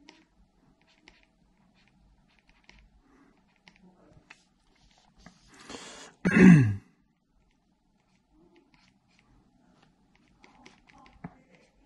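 A person's sudden vocal burst about six seconds in: a rising noisy breath in, then a loud, short, explosive blast of breath that drops steeply in pitch. Faint ticks of a stylus on a pen display tablet are heard either side.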